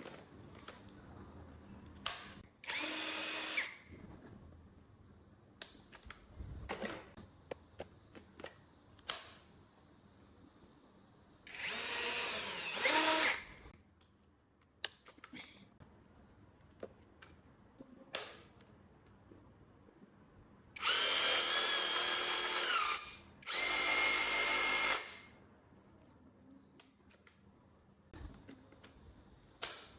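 Brushless cordless power tool motor run briefly four times, each burst a high whine that spins up and then stops. Between the runs come light clicks and knocks of handling.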